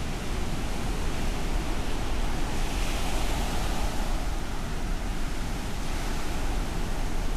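Ocean surf washing onto a sandy beach in a continuous hiss with a low rumble underneath, one wave swelling louder about three seconds in.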